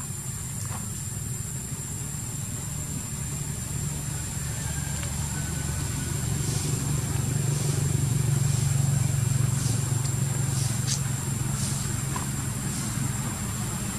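Low, steady engine rumble that swells to its loudest about two-thirds of the way through and then eases off, with a thin, steady high whine above it and a few faint short high chirps.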